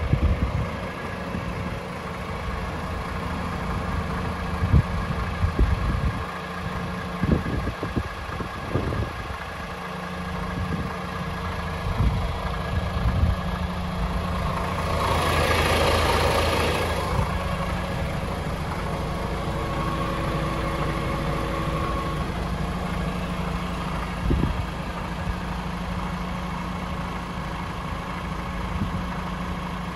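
Diesel engine of a DAF XF106 tractor unit, its Paccar 440 bhp Euro 6 engine, idling steadily. A few short knocks come in the first third, and a rush of hiss swells and fades about halfway through.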